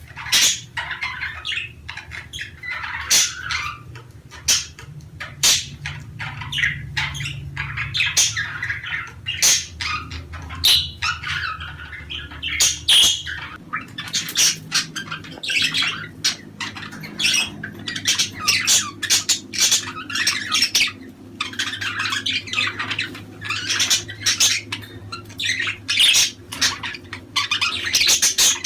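A group of budgerigars chattering, with rapid overlapping chirps, warbles and squawks, over a faint low hum.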